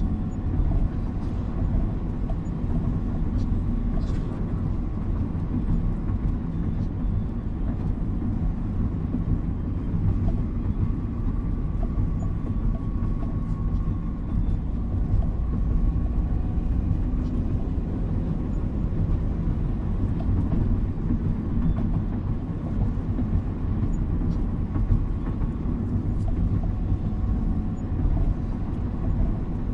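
Steady low rumble of a car's engine and tyres on a wet street, heard from inside the car, with a few faint ticks.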